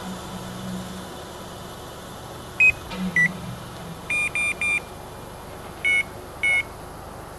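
Electronic carp-fishing bite alarms on a rod pod set off by hand, each giving a short electronic beep at a slightly different pitch: two single beeps, a quick run of three, then two more.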